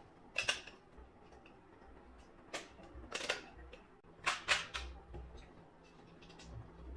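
Scattered light clicks and rattles of small parts being handled, some in quick pairs: a 3D-printed plastic mount fitted against a ducted fan's plastic housing, and small screws picked from a parts tray.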